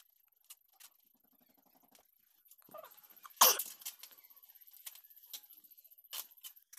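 Paper and tape being handled while wrapping a plastic pipe: scattered small crackles and clicks, with one short, sharp noise about three and a half seconds in.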